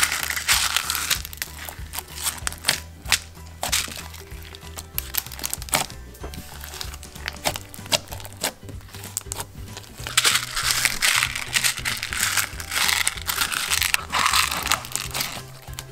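Slime being kneaded by hand with fishbowl beads mixed in: a dense crunchy crackling and clicking, thickest at the start and again in the last few seconds, over background music.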